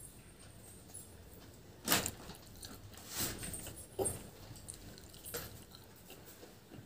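Eating puri and ghugni curry by hand: chewing and a few short wet smacking sounds of mouth and fingers on soaked puri, the loudest about two seconds in.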